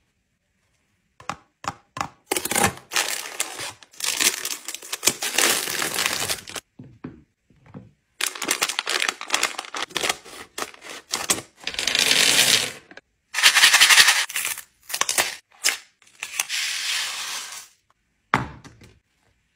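Candy packaging crinkling and tearing, scissors cutting open a plastic bag of M&M's, and hard-shelled candies clattering onto a wooden tray, in short separate bursts with brief pauses between them.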